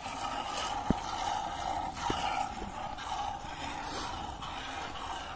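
Milk squirting from a Red Sindhi cow's teats into a plastic bucket during hand-milking: repeated short hissing squirts, with a sharp click about a second in.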